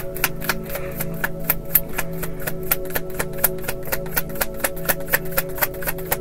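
Tarot cards being shuffled by hand: a quick, continuous run of light card slaps and clicks, several a second, over background music with long held tones.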